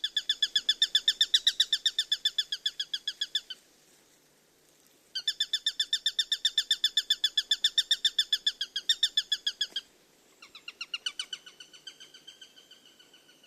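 A bird calling in three long runs of rapid, evenly repeated notes, about seven or eight a second. Each run lasts several seconds with a short pause between; the third is quieter and drops slightly in pitch near the end.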